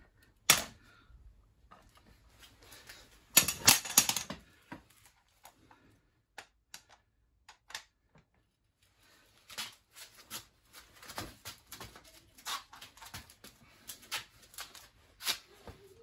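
Bolt cutters clicking and clanking against the steel shackle of a U-lock as the jaws are repositioned and squeezed, failing to bite through; the cutter's jaws are worn dead. A sharp click about half a second in, a loud cluster around four seconds in, and scattered lighter clicks through the second half.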